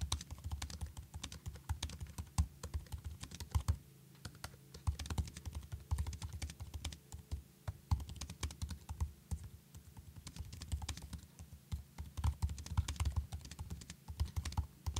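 Typing on the scissor-switch keyboard of a 2025 MacBook Air M4: a steady run of quick, light key clicks, with a brief pause about four seconds in.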